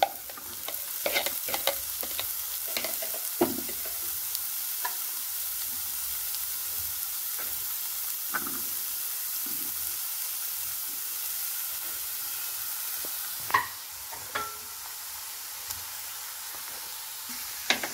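Grated vegetables sizzling in hot oil in a kadhai, stirred with a spatula that scrapes and taps against the pan. The taps come mostly in the first few seconds and again near the end, over a steady sizzle.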